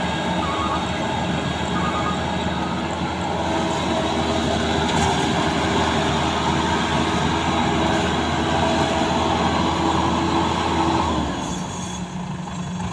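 Combine harvester engine and drive running steadily with a whine. About eleven seconds in, the engine note drops and the sound eases off.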